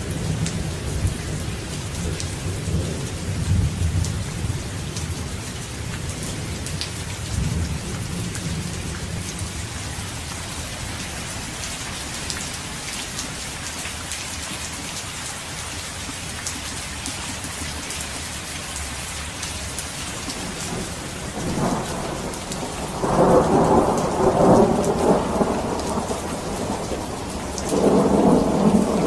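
Steady heavy rain with thunder: a low rolling rumble in the first several seconds, then two louder peals of thunder, one about three quarters of the way through and another near the end.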